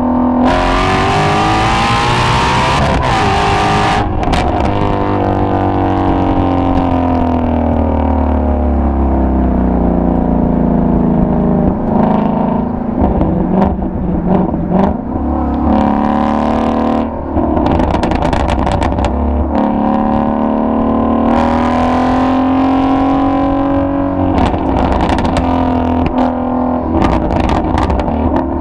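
Ford Mustang Shelby GT350's 5.2-litre flat-plane-crank V8 accelerating hard for the first few seconds, then dropping in pitch as it slows and picking up again. Bursts of exhaust pops and crackles come on the overrun through the middle and near the end.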